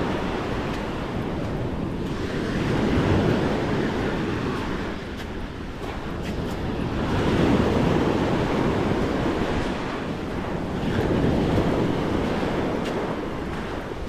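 Small sea waves breaking and washing up the shore, swelling about every four seconds, with wind buffeting the microphone.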